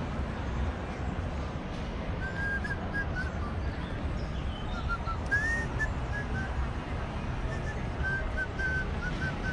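A person whistling a tune in short notes, starting about two seconds in, over a steady low background rumble.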